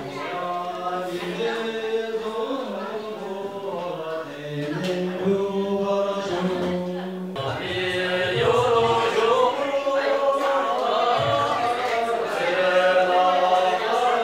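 Several voices singing a slow, chant-like song together, holding long notes that step up and down in pitch; it gets louder about halfway through.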